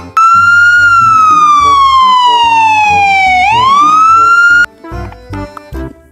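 Police siren: one long wail that glides slowly down in pitch, then sweeps quickly back up and cuts off suddenly about four and a half seconds in. Background music with a steady beat plays underneath and carries on after it.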